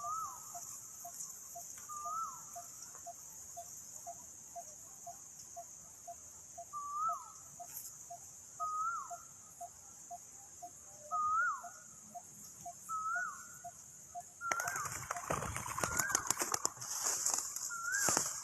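Birdsong outdoors: a short call that rises then falls repeats every second or two over a steady high insect hiss and a faint regular ticking. About fourteen seconds in, a loud burst of wing flapping and rustling takes over to the end.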